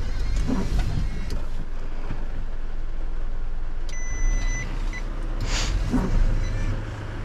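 Refuse truck's diesel engine idling steadily, heard from inside the cab, with a short electronic beep about four seconds in and a brief hiss soon after.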